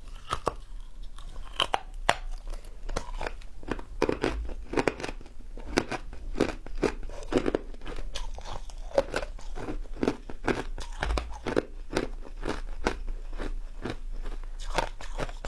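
Close-miked chewing of crunchy fried food: a steady run of crisp crunches and crackles as a person bites and chews, with a soft rhythmic chewing pulse beneath them.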